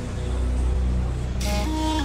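Background music with a steady low bass; brighter sustained notes come in about one and a half seconds in.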